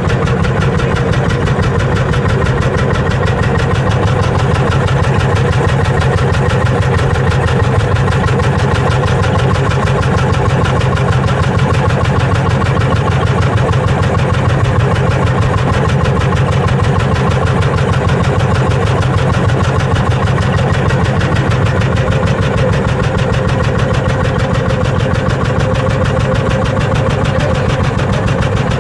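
An engine idling steadily, its firing even and unchanging.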